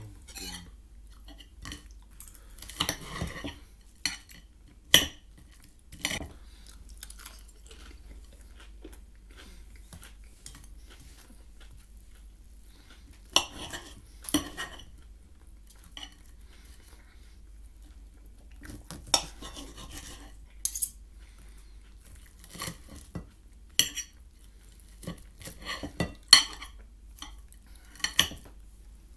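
Cutlery on a plate: scattered sharp clinks and clacks, some in quick pairs, with a few longer scraping sounds as food is cut and picked up.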